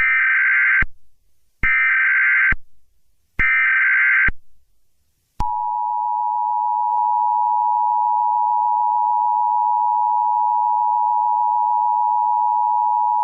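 Emergency Alert System SAME header: three short bursts of warbling data tones, followed about five seconds in by the EAS attention signal, a steady two-note tone held without a break.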